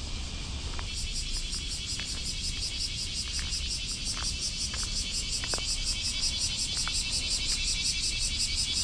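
A chorus of cicadas buzzing in a steady, fast-pulsing drone that swells about a second in. A few short, thin chirps sound over it.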